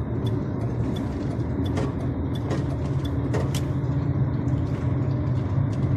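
Diesel engine of a DAF truck pulling at low speed, heard from inside the cab as a steady hum. The owner suspects the engine of misfiring under load. A light tick repeats about every 0.7 s, with a few sharp clicks around the middle.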